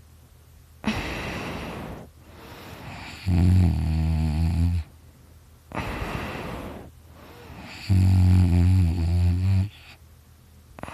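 A sleeping man snoring in a steady cycle: two low snores, each about a second and a half long, alternate with rushing breaths, one breath-and-snore cycle every four to five seconds. The snorer puts his snoring down to extra tissue in his throat.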